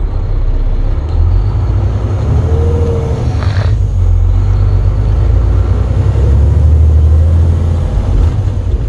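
Semi truck engine heard from inside the cab as the truck drives on, a steady low drone that gets louder about a second in. A short higher-pitched sound cuts in about three seconds in.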